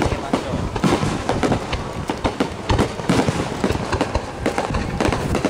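Fireworks going off in a rapid barrage: many bangs and pops close together without a break, as aerial shells and crackling bursts go off one over another.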